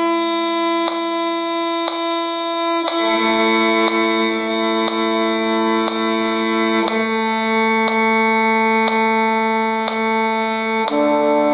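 Five-string violin bowing long whole notes, one open string and then two strings together as a double stop, the notes changing about every four seconds. A faint steady click sounds about once a second.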